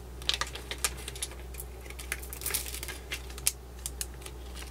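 Scattered light clicks and rattles of small beads being handled and sorted, coming irregularly, several a second.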